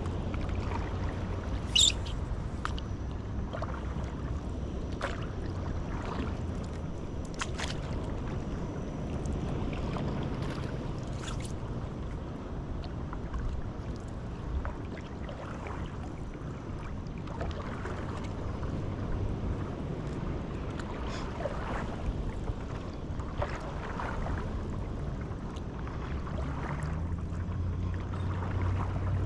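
Stand-up paddleboard paddle strokes dipping and splashing in calm river water, over a steady low rumble. One sharp click about two seconds in is the loudest sound.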